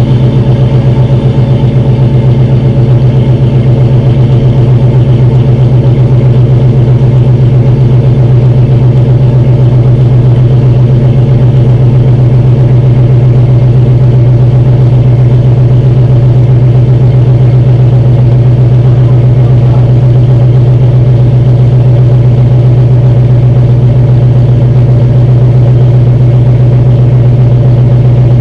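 1998 Jeep Grand Cherokee's 5.2L Magnum V8, bored out to 5.3L, idling loud and steady as it warms up from a cold start. It runs through long-tube headers, no catalytic converter and a 3-inch exhaust with a Flowmaster Super 44 muffler.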